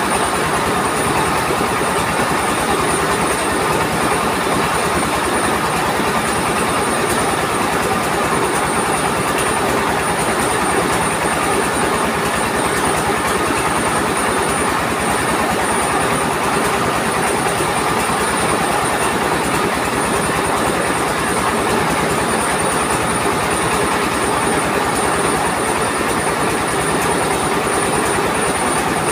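Mobile rice mill running: its engine drives the husker and polisher in a loud, steady mechanical clatter, with a high steady whine above it, as grain is fed through.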